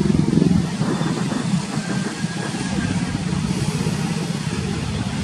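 Nepal Airlines Airbus A330's twin jet engines running at low taxi thrust as the airliner lines up on the runway, a steady low rumble that eases slightly about half a second in.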